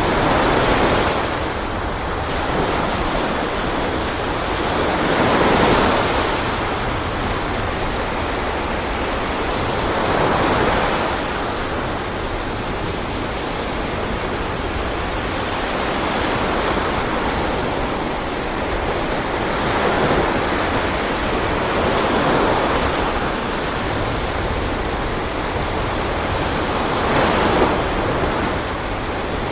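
Sea waves: a continuous rushing wash that swells every few seconds as each wave surges.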